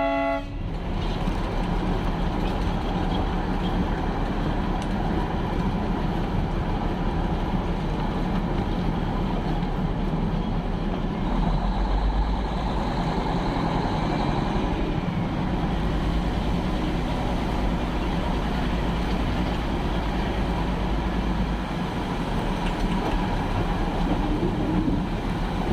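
Darjeeling Himalayan Railway toy train running, heard from on board as a steady rumble and rattle, with a faint high tone about halfway through.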